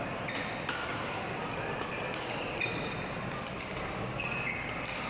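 Badminton doubles rally: rackets striking the shuttlecock in sharp knocks, and shoes squeaking briefly on the court floor, over a background of voices.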